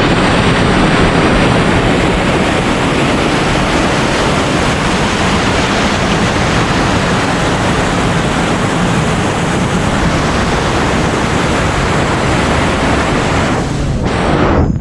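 Loud, steady rush of a waterfall, with no break until a brief dip near the end.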